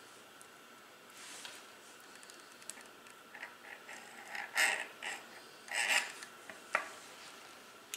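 Small greasy metal parts of a Shimano coaster-brake hub clicking and scraping as they are worked off the axle by hand. Scattered light clicks, two short louder scrapes around the middle, and a sharp click near the end.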